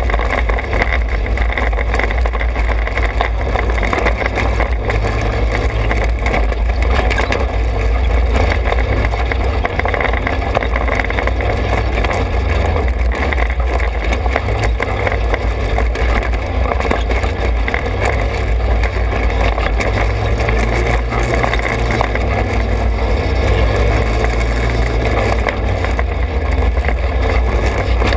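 Trailmaster 200 XRX's small engine running at a steady cruising speed on a dirt trail, with a heavy, constant rumble and no changes in revs.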